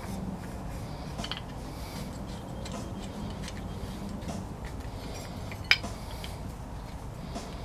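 Light metallic clicks and ticks of small headlight bucket parts and screws being handled and fitted by hand, with one sharp, louder click a little under six seconds in.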